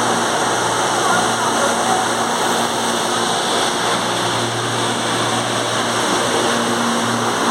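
Inside a CPTM Série 8000 electric train car under way: the steady rumble of the train running, with a low steady hum from the traction motors.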